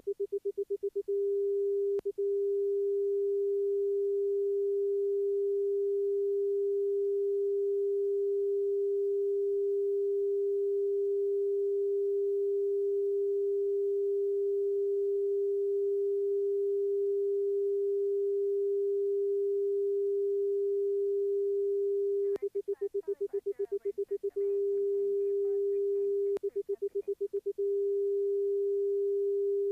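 Electronic tone from an aircraft's audio slip indicator: one steady mid-pitched tone that shifts left and right in stereo with the slip-skid ball and comes back to centre as the ball centres. It breaks into rapid pulses of about ten a second near the start, for a moment about two seconds in, and for stretches of a second or two about two-thirds and three-quarters of the way through.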